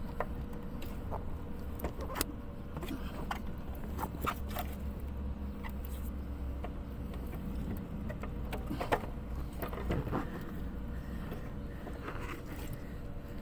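Scattered metallic clicks and clinks of hand tools and fittings as a car's auxiliary battery is unfastened and worked loose, a little busier about nine seconds in, over a steady low hum.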